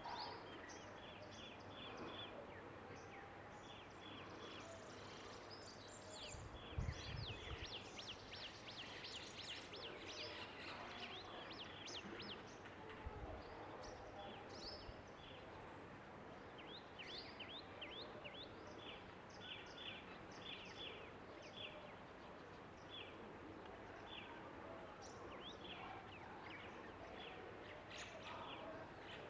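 Small birds calling outdoors, faintly: runs of short, high chirps repeated in quick groups, with a busier stretch of rapid chirping in the first half. Two brief low thumps, one about seven seconds in and one about thirteen seconds in, stand out over the background.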